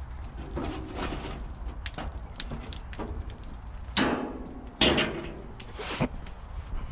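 Several separate sharp knocks and clanks, the loudest about four and five seconds in, from things handled at a charcoal grill.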